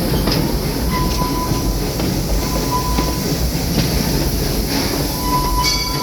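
Amusement park train rolling along its track, heard from aboard: a steady rumble of the cars on the rails, with a thin wheel squeal coming and going.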